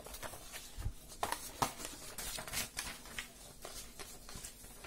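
Sheets of paper notes being turned over and handled: scattered soft rustles and light clicks.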